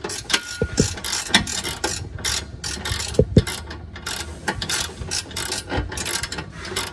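Hand ratchet wrench clicking in quick, irregular strokes as it tightens a bolt holding a steel bumper-bar mounting bracket, with a few louder knocks about half a second in and about three seconds in.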